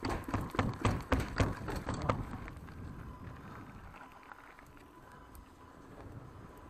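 Mountain bike rattling over a metal-grating bridge, a fast run of sharp knocks for about two seconds, then the quieter rolling of tyres on a dirt trail.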